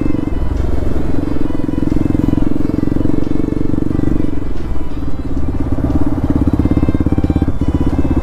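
Bajaj Pulsar NS200's single-cylinder engine running at low road speed, heard from on the bike. About halfway through its beat turns slower and more distinctly pulsing.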